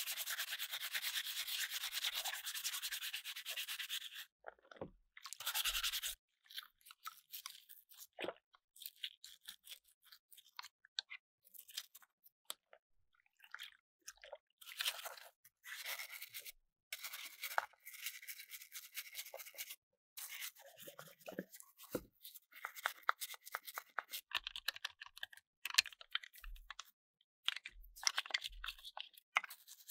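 Scrubbing and rubbing on a hard plastic part: a steady scrub for about the first four seconds, then short scratchy strokes in irregular bursts with brief pauses, and a few light knocks near the end.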